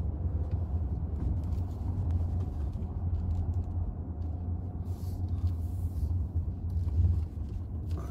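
Steady low rumble of a car heard from inside its cabin: engine and road noise, with no other distinct event standing out.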